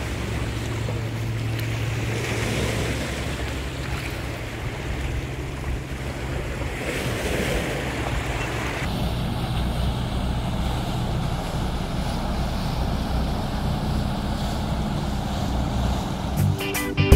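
Wind buffeting the microphone over a steady low hum, and in the second half the low drone of a motor yacht's engines cruising past in the marina. Music with plucked strings starts near the end.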